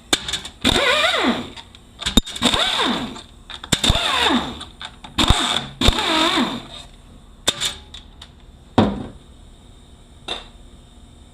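A power tool runs in four short spurts, each winding up and falling away in pitch, backing out the bolts that hold the valve body on a 6L80 automatic transmission. A few sharp metal clinks and clunks follow, typical of loosened bolts and parts being set down.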